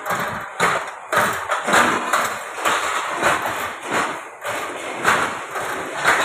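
Automatic ring-bending machine driven by a 1.5 hp electric motor, running with a rapid, uneven clatter of metal knocks, about two a second.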